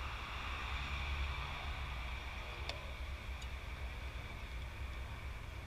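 Steady wind rumble and hiss on the microphone, with one sharp pop about two and a half seconds in as a pitched baseball smacks into the catcher's mitt.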